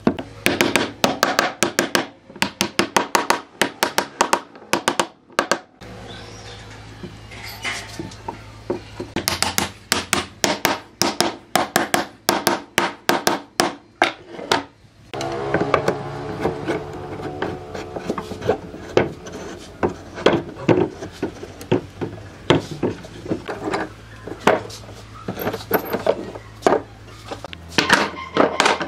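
Wood being struck repeatedly with a hand tool: runs of sharp knocks, about four a second, with short pauses between runs.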